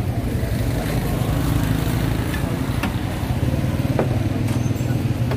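Steady low rumble of an engine running close by, with a couple of faint clicks of a ladle against the steel pot about three and four seconds in.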